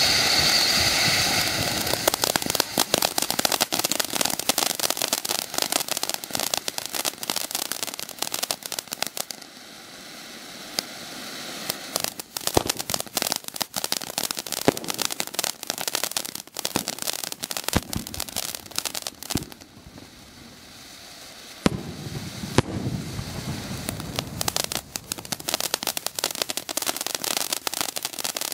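Dominator 'Xmas in July' (DM212F5) ground fountain firework hissing at first, then crackling densely as it sprays sparks and crackling stars. The crackle thins out twice, and there is one sharp pop about 22 seconds in.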